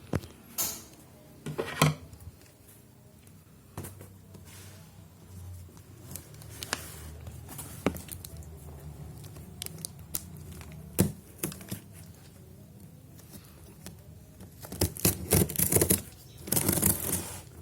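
Packaging being opened by hand: irregular tearing, crinkling and sharp clicks, with a busier run of crinkling and tearing near the end.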